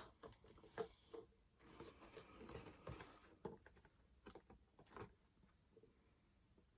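Faint handling of a doll's box and plastic packaging: scattered light clicks and taps, with a soft rustle about two seconds in.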